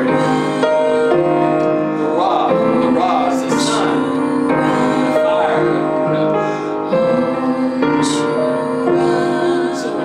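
A woman singing over grand piano accompaniment, holding long notes with wavering runs between them.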